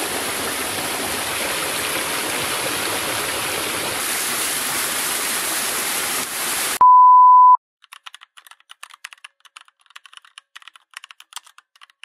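Steady rushing of waterfall water, which cuts off abruptly about seven seconds in. A short, loud, steady beep follows, then faint irregular clicking like keyboard typing, an edited sound effect.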